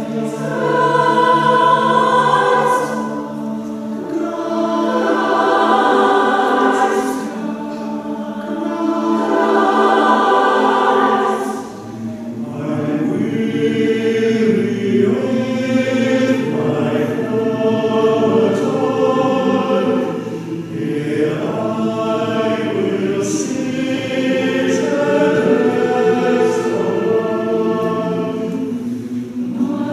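Mixed choir singing an anthem in a church. The first dozen seconds come in phrases with short breaks between them; from about twelve seconds in, the singing fills out lower and runs on more continuously.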